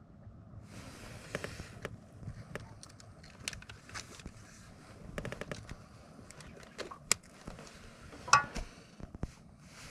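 Handling noises: irregular clicks, taps and rustles as a crappie is held and lifted on a handheld lip-grip fish scale, with the sharpest click a little before the end.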